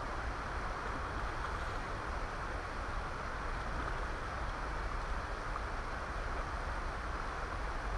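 River water rushing over a rocky riffle: a steady hiss, with a low rumble of wind on the microphone underneath.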